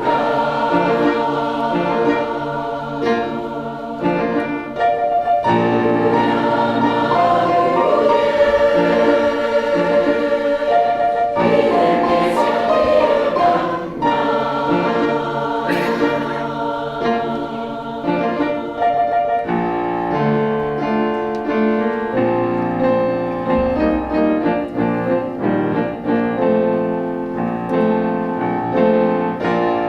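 A choir singing with piano accompaniment.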